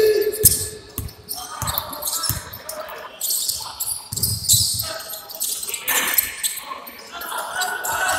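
Basketball game: a ball being dribbled on a wooden court, with shoes squeaking and voices calling out, echoing in a large sports hall.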